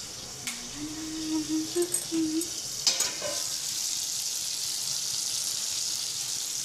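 Turmeric-coated fish pieces sizzling as they fry in hot oil in a kadai, the sizzle growing stronger and steadier after about three seconds. A short low hum and two light knocks come in the first three seconds.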